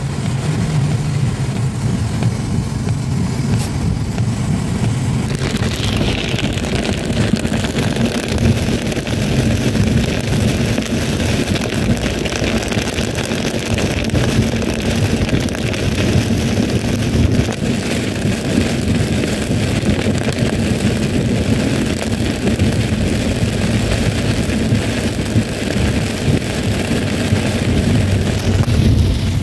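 Car driving in heavy rain, heard from inside the cabin: steady engine and road rumble under the hiss of rain and wet tyres, the hiss growing brighter about six seconds in.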